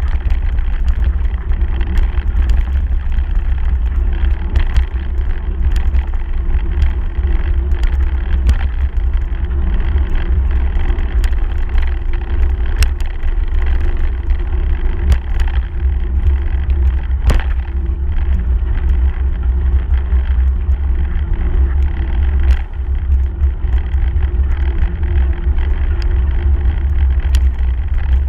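Bicycle riding along a dirt and gravel path, heard from a camera on the handlebars: a steady low rumble of wind on the microphone and tyres on the ground, with scattered clicks and knocks as the bike goes over bumps.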